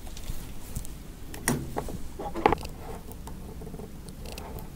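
Light handling noise at a workbench: a few soft knocks and taps of tools and parts being picked up and set on the tabletop while getting ready to solder a coax connector pin. The sharpest tap comes about two and a half seconds in.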